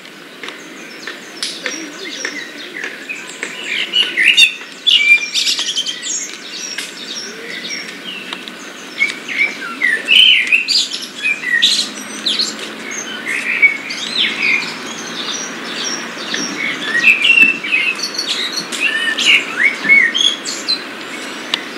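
Many small birds chirping at once: a busy chorus of short high chirps and quick warbled notes.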